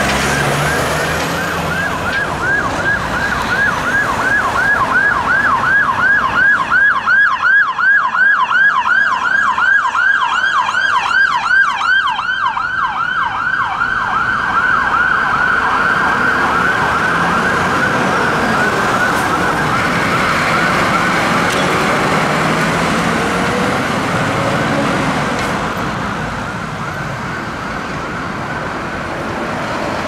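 Whelen Gamma2 siren on a 2015 Land Rover Discovery Sport rapid response ambulance sounding its yelp tone, a fast rising-and-falling wail repeating several times a second. It is loudest about ten seconds in as the vehicle passes close, then blurs and fades as it drives away into the distance, leaving traffic noise near the end.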